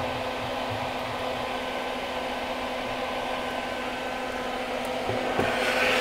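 Solder fume extractor fan running steadily, a noisy whoosh with a faint hum. A couple of light clicks and some handling rustle come near the end.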